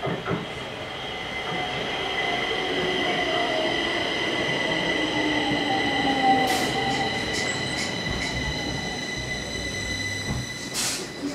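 Stockholm metro train pulling into the station and slowing. A steady high squeal runs throughout, with lower tones slowly falling in pitch as the train slows. A few clicks come about two-thirds of the way in, and there is a short hiss near the end.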